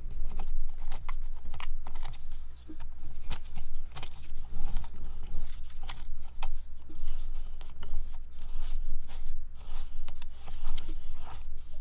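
Hands handling a camera super clamp on a mic stand with a recorder mounted on it: a busy run of small clicks, knocks and scrapes, as the clamp is worked and its hold tested. A steady low hum lies underneath.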